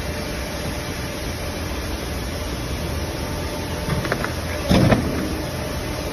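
Hydraulic cutting press for honeycomb paperboard running, its pump motor giving a steady hum. A few light clicks come about four seconds in, then a short loud clunk from the press.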